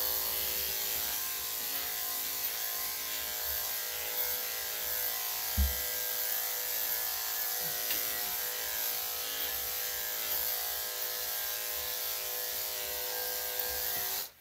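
Corded electric dog-grooming clippers fitted with a #3 3/4 blade, running with a steady hum as they clip the dog's coat, with one short low thump about five and a half seconds in. The clippers cut off right at the end.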